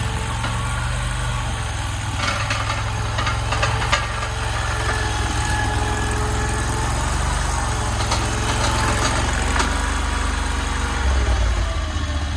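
AGT LRT23 stand-on mini skid steer's 739 cc engine running steadily, with several sharp metal clanks from the machine at work. The engine's low note changes near the end.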